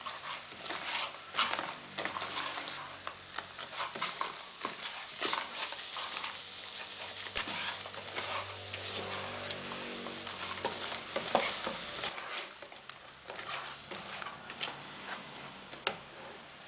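Crab pieces being stirred with a spatula in a hot pot, mixing in curry powder: repeated scraping and clattering knocks of the spatula and shells against the pot, over a steady frying sizzle.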